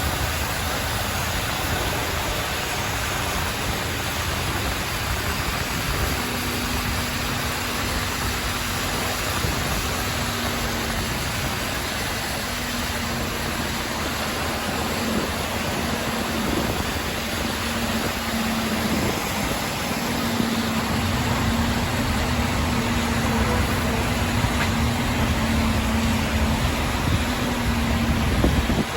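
Highway driving noise: a steady rush of tyres and wind with engine drone. A low steady hum joins about six seconds in and runs almost to the end.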